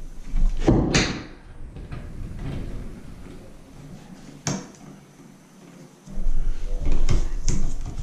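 Hands handling stiff electrical wires in a blue plastic wall electrical box: a loud bump about a second in, a sharp click about halfway, then a run of rustles and clicks near the end.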